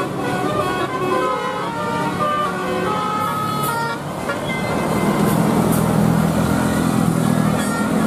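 Bus telolet musical horn playing a quick stepped melody of short notes for about four seconds, then stopping. The coach's engine then runs loudly as it passes close by, with a few short hisses.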